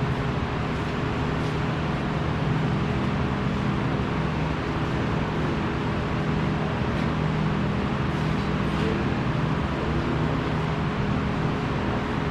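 Steady machine hum with a constant rush of noise, unchanging throughout.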